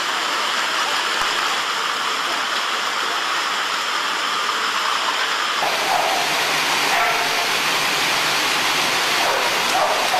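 Wooden-slat dog treadmills running steadily under running dogs, a dense continuous rush of noise, with faint crowd voices in the background.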